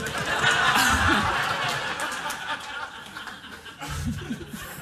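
Theatre audience laughing and applauding, starting suddenly as the juggling trick's drum roll ends, loudest in the first two seconds and then dying down.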